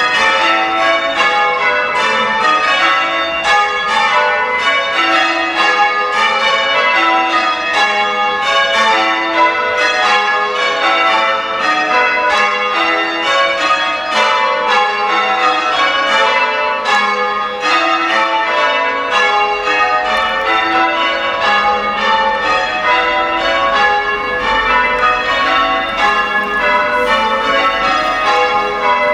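Change ringing on the front six of a ring of eight church bells, heard from outside the tower: an even, unbroken run of strokes, one bell after another.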